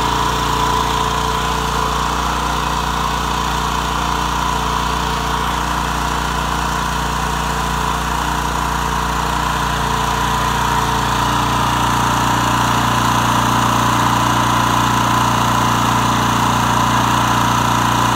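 Pressure washer's small gas engine running steadily, driving the pump as it sucks antifreeze in through the intake hose to winterize the pump. The engine note shifts slightly about ten seconds in.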